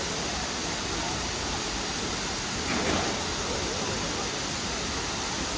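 Hongjecheon waterfall's water falling in a steady rush, with faint voices briefly audible about three seconds in.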